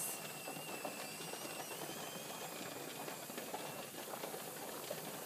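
Pressure canner heating on the stove with its vent sealed and pressure building: a steady faint hiss, with a faint thin whistle that fades out after about two seconds.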